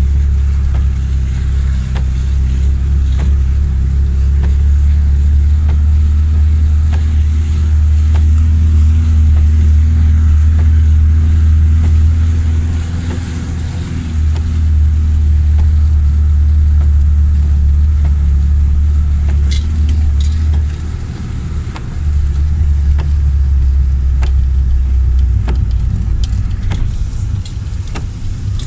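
Lada Niva's engine and drivetrain heard from inside the cab, a steady low drone as it drives on a muddy dirt track, dropping off briefly twice, about halfway and about two-thirds through. Scattered light knocks run through it.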